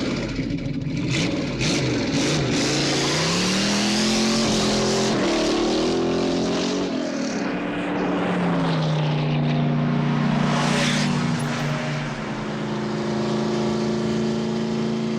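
Car engine revving and accelerating hard, its pitch rising and falling several times, over a dense rushing noise.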